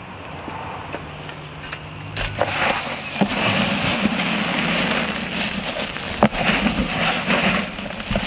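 Dry threshed wheat heads and straw rustling and crackling in a flexible rubber tub as it is lifted and tipped, loud from about two seconds in. A faint low hum comes before it.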